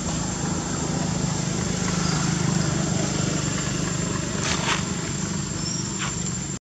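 A steady low engine-like hum, swelling about two to three seconds in and easing off again, over a faint high steady whine. The sound cuts off abruptly at the very end.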